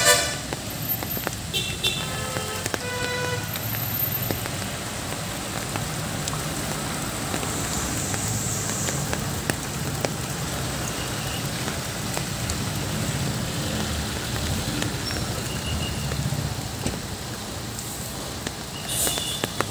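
Road traffic on a wet hairpin bend: vehicle engines, a bus among them, running slowly under a steady hiss of tyres on wet tarmac. Two short horn toots sound about two seconds in.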